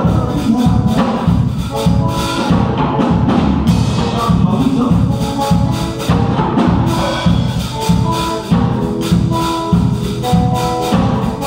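Live band music: an electric guitar picks short melodic notes over bass and drums keeping a steady beat.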